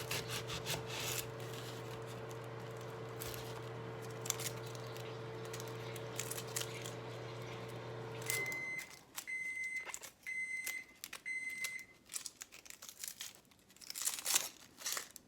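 Microwave oven running with a steady hum while it melts butter. The hum cuts off about eight seconds in, and the oven beeps four times to signal the end of its cycle, with a few light clicks and knocks around the beeps.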